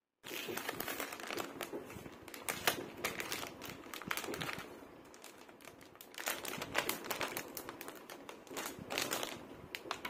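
A clear plastic poly bag crinkling and crackling as hands handle it and slide a tablet folio case out. The crackles come in busy waves.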